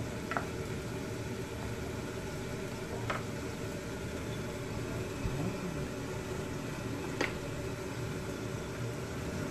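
Wooden spatula stirring crabs in a pan, knocking sharply against it three times, over a steady hum.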